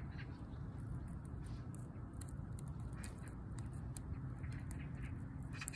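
Orange tabby cat's claws scratching tree bark: faint dry, crackly scratching in short irregular bursts, over a steady low background rumble.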